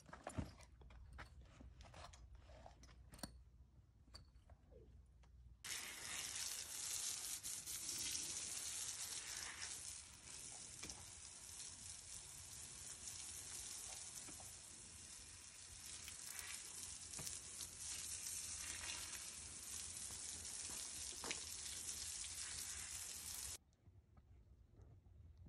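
A few faint knocks and clicks, then water spraying from a garden hose onto a horse's coat: a steady hiss of about eighteen seconds that cuts off suddenly.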